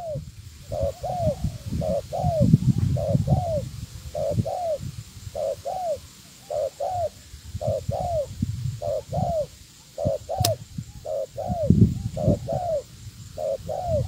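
Spotted dove cooing: a quick pair of short rising-and-falling coos, repeated about once a second. Low rumbling noise comes and goes between some of the calls, and there is one sharp click about ten seconds in.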